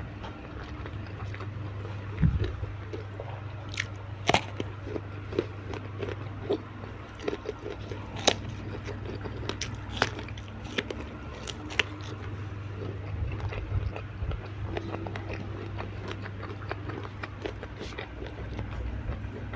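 Close-miked eating of fried tilapia with raw vegetables: irregular crisp bites and crunches with wet chewing in between, over a steady low hum.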